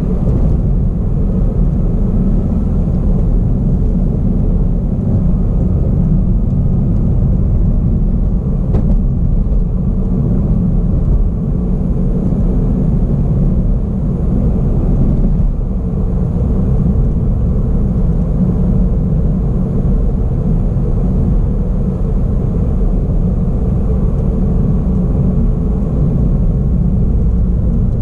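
A car driving on a paved road, heard from inside the cabin: a steady low rumble of tyre and engine noise.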